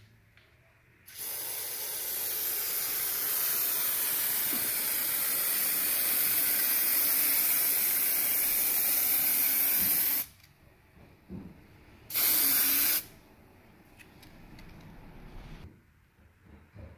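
Aerosol spray adhesive hissing from the can in one long spray of about nine seconds, then a short second spray of about a second, coating the drywall edge to bond plastic corner bead.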